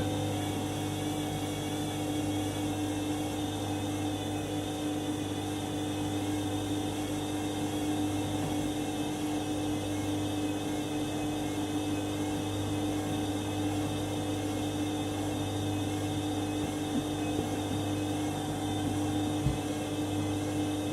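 Candy washing machine running steadily with a low hum and whir at the end of a 90° main wash.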